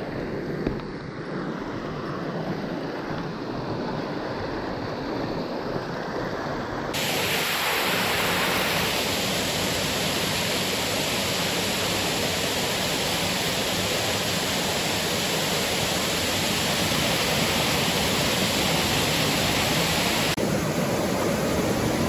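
Rushing creek water, a steady hiss that turns suddenly brighter and louder about seven seconds in.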